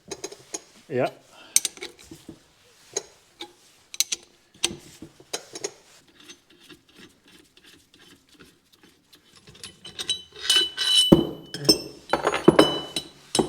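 Metal tools and parts being handled on a workbench during bushing installation: a run of small clicks and taps, then louder metallic clanks that ring, about ten to thirteen seconds in.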